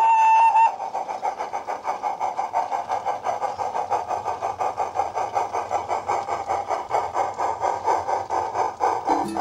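Simulated steam-locomotive sounds from the sound card of a battery-powered 16mm-scale Kerr Stuart model loco: a whistle that cuts off under a second in, then a steady, even run of rapid chuffs, timed by the chuff cam on the motor block.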